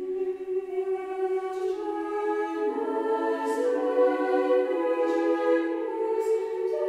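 Slow choral music: voices hold long chords that shift every second or two and gradually grow louder.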